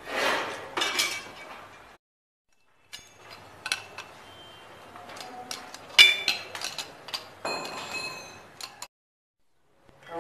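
Steel combination spanner clinking against the nuts, bolts and bracket plate as the anchor bolts of a steel lift guide-rail bracket are tightened on a concrete wall: a run of irregular sharp metallic clinks, the loudest about six seconds in.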